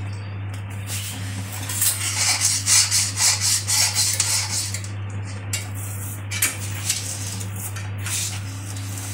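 Steel slotted spatula scraping against a kadhai as it stirs milk reduced to a thick paste. There is a spell of quick scraping strokes from about one and a half to five seconds in, then quieter stirring with a few clicks, over a steady low hum.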